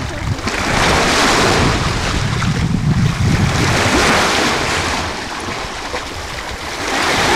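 Small waves washing and breaking against shoreline rocks, the rush swelling and fading in surges, with wind rumbling on the microphone.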